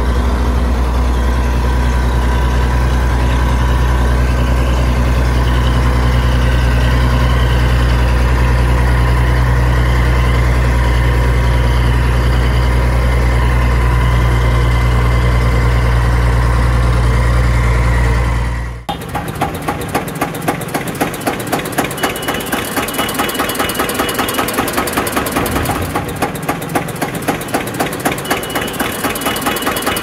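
Diesel engine sound effects: a steady deep engine hum, which cuts off abruptly about two-thirds of the way through and is replaced by a rapid, regularly pulsing knocking diesel idle like a tractor's.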